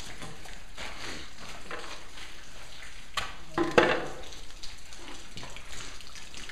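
Crackling, rustling handling noise as the camera is carried and moved, with scattered small clicks and a short, louder clatter about four seconds in.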